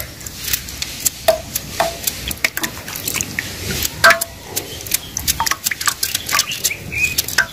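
A knife cutting small pieces from a peeled cassava slice held in the hand, with irregular crisp cuts, and the chunks dropping into a pan of water in short plops.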